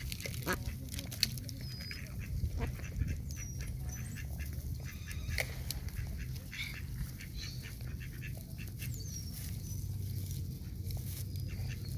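Rock pigeons and a mallard hen feeding on scattered food on grass: many short pecking clicks and scuffles, with now and then a duck quack and a few short high chirps. A steady low rumble runs underneath.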